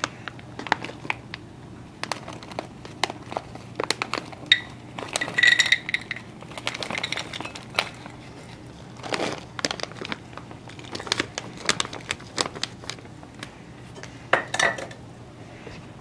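Scattered clicks, knocks and clinks of kitchenware as blueberries are poured from a bag into a plastic measuring cup and stirred into muffin batter in a glass mixing bowl, with a few short ringing glass clinks.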